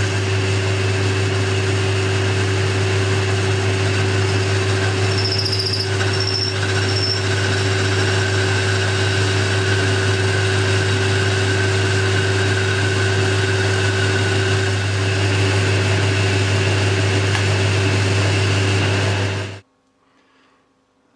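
Boxford lathe running steadily with a strong motor hum while a parting tool cuts off a small pin, with a brief high squeal from the cut about six seconds in. The sound cuts off abruptly near the end.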